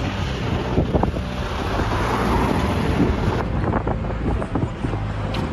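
Wind buffeting the microphone over city street traffic noise, with an abrupt change in the sound about three and a half seconds in.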